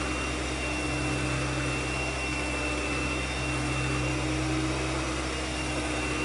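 Handheld electric mixer running steadily with its beaters in a plastic mixing bowl of cookie dough: an even motor whir with a steady high whine over it.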